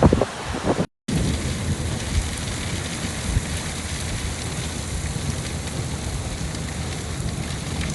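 Heavy rain falling as a steady, even wash of noise, starting after a sudden cut about a second in; a few loud thumps come before the cut.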